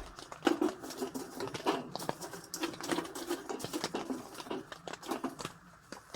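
Rain pattering on a lavvo tent: a dense, irregular run of drops striking the fabric.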